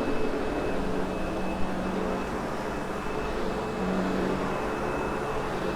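Sebo X8 upright vacuum cleaner running steadily over a loop-pile carpet: a constant motor hum and whine with a faint high tone.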